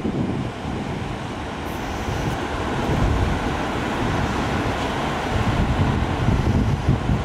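Wind buffeting the microphone in uneven low gusts over the steady rush of ocean surf breaking on the beach.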